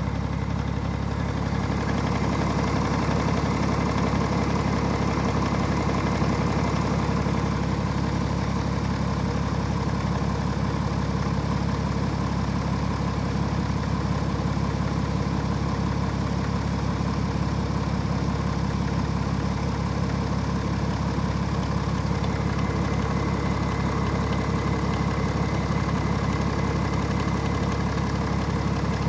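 BMW X6 E71 engine idling steadily with a fast, even knock running through it, a knock the owner cannot explain.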